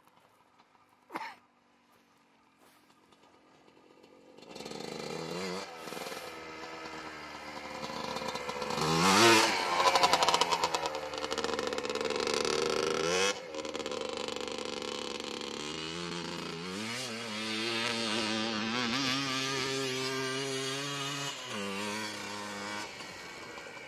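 Yamaha Blaster's two-stroke single-cylinder engine revving as the quad is ridden over gravel, its pitch rising and falling with the throttle. It is faint at first, comes in strongly about four seconds in, and is loudest around ten seconds in as it passes close.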